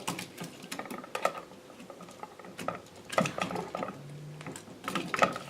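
A screwdriver loosening the ground-wire terminal screw on an electrical outlet: scattered small metallic clicks and scrapes.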